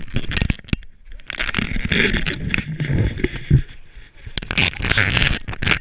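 Running footsteps crunching and scraping on packed snow, with rough rubbing and wind noise on a body-worn action camera's microphone; the sound cuts off suddenly at the end.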